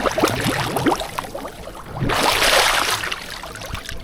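Water sloshing and bubbling around a camera dipped under the surface, with short rising bubble chirps, then a louder rush of water a little after two seconds in.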